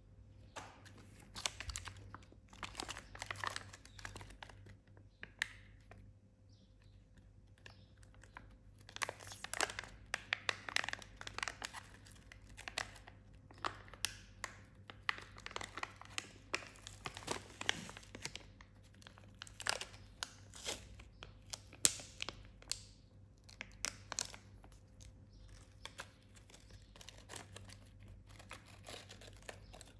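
Crinkly plastic snack packaging handled and opened by hand: a run of irregular crackles and sharp clicks with short quieter gaps.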